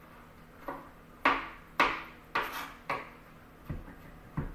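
Chef's knife chopping garlic on a plastic cutting board: a series of sharp knocks of the blade on the board, about two a second, as the cloves are minced.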